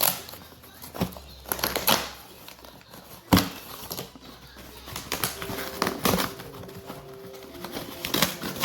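Cardboard laptop box and its packaging being handled and opened: scattered rustles and knocks, the loudest a sharp knock a little over three seconds in.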